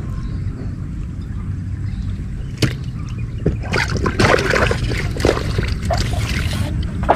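Water splashing and sloshing in a keep bucket for about three seconds, starting near the middle, as a freshly caught snakeskin gourami goes in. A single sharp click comes just before, over a steady low rumble.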